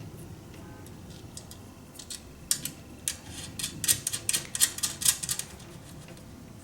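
A quick cluster of light, sharp metal clicks and taps from small hardware being handled during reassembly of the unit, starting about two and a half seconds in and stopping a little after five seconds.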